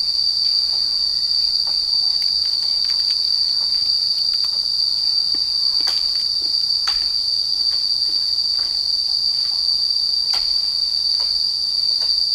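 A steady, high-pitched drone of insects, unbroken, with a few faint clicks and taps here and there.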